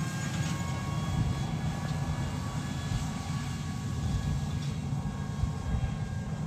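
New Holland T9.670 HD tractor running steadily under load while pulling a Bourgault air drill, a low rumble with faint steady whines above it.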